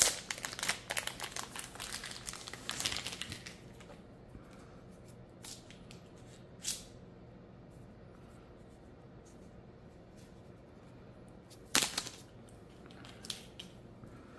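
Plastic packaging crinkling and rustling as a selfie stick is pulled out of its plastic sleeve, for about four seconds. After that come a few scattered clicks and knocks of the stick being handled, the loudest about twelve seconds in.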